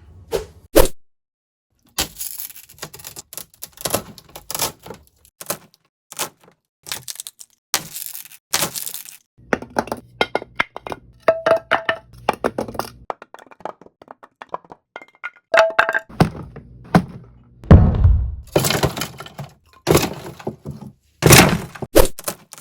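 Sound effect of a large wooden box being smashed to pieces: a long run of sharp wooden cracks, splintering breaks and thuds, with a couple of brief pauses. The heaviest, deepest thud comes about two-thirds of the way through.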